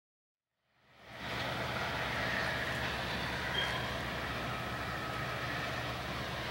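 Three Canadian Pacific GP20C-ECO diesel locomotives, EMD eight-cylinder 710 engines, running steadily as they pull a cut of freight cars: a constant low engine hum under the rumble of the train. The sound fades in about a second in, and a short faint high squeal comes through near the middle.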